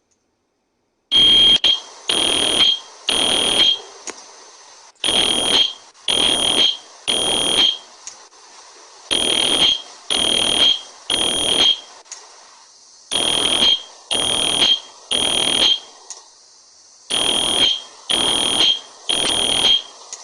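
Fire alarm sounding in a pulsed pattern: groups of loud, high beeps, a new group starting about every four seconds, after about a second of silence at the start.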